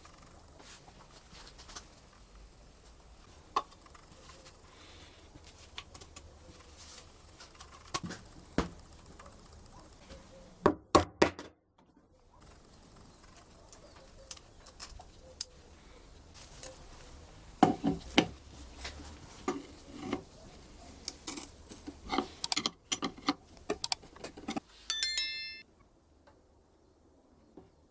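Intermittent clinks and knocks of metal parts and tools being handled. A tight cluster of knocks comes about eleven seconds in, and more follow from about eighteen seconds on. The angle grinder is not running.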